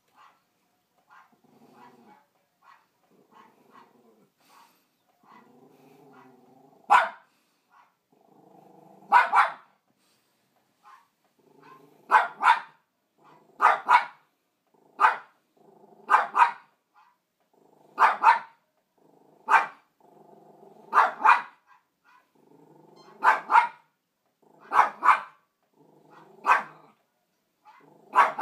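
Small poodle growling low, then from about seven seconds in barking sharply at the television: single barks and quick pairs every second or two, with low growls between them.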